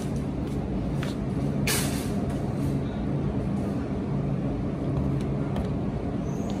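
Shopping cart rolling over a tiled supermarket floor: a steady low rumble over a constant low hum, with a short hiss about two seconds in.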